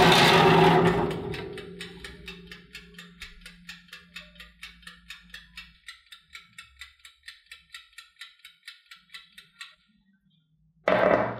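A metal baking tray slides into a countertop oven with a loud scrape. Then the oven's mechanical timer ticks evenly, about five ticks a second, for several seconds over a low hum that fades away. Near the end a short loud knock sounds as the tray is set down on a wooden board.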